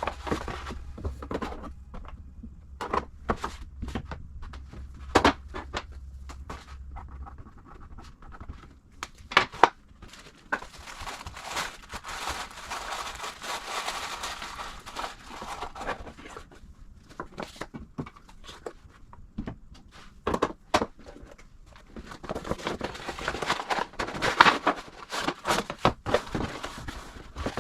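Small objects being handled on a work table: scattered taps, clicks and knocks, with stretches of rustling as of paper or packaging material.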